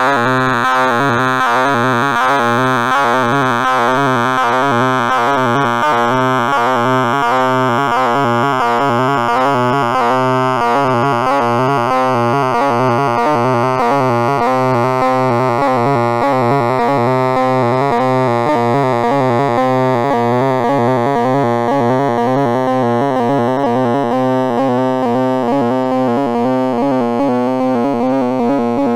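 Computer sonification of a sorting algorithm: a rapid, unbroken stream of very short synthesized tones jumping about in pitch, each tone's pitch set by the value of the array element being accessed as the sort runs.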